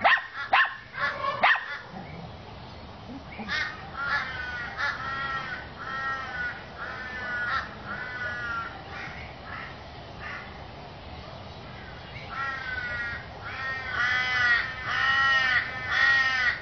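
A dog barks a few times at the start. Then a peacock calls in two long runs of short, harsh, arching honks, about two a second, with the second run louder.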